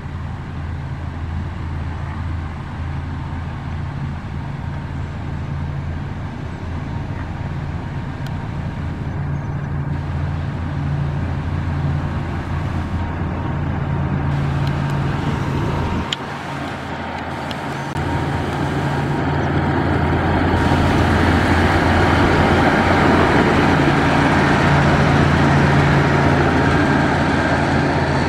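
Diesel engines of heavy road-building machines, a motor grader and a road roller, running steadily with a low, even drone. The low note drops out briefly a little past halfway, then the sound comes back louder with a coarse hiss of gravel being worked.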